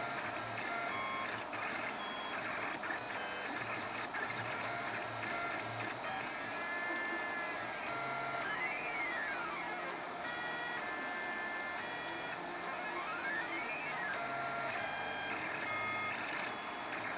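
Zion 8 3D printer printing PLA at 150 mm/s: its stepper motors sing in short tones that jump in pitch with each move, with a few arching rising-and-falling glides. A steady hiss of the cooling fans runs underneath.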